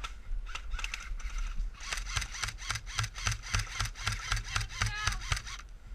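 Airsoft guns firing: a few scattered sharp snaps, then from about two seconds in a rapid run of shots, several a second, that stops shortly before the end. A faint shout is heard near the end.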